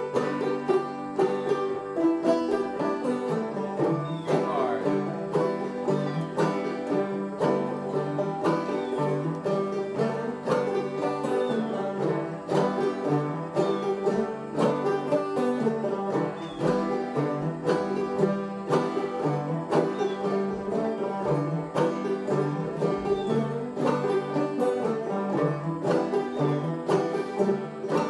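Banjo played clawhammer style: an old-time tune picked in a steady, driving rhythm.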